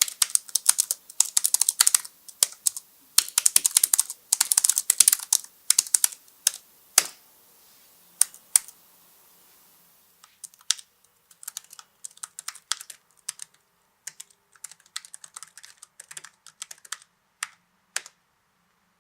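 Fast typing on the XMG NEO 15 laptop's mechanical keyboard. For the first half it is the clicky switches, similar to Cherry MX Blue, with loud, sharp clicks. After a short break about ten seconds in, it is the quieter silent switches, similar to Cherry MX Brown, with softer and sparser keystrokes.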